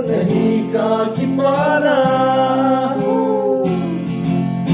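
Men singing a song to a strummed guitar. Near the end the voice slides down and stops, and the guitar chord keeps ringing.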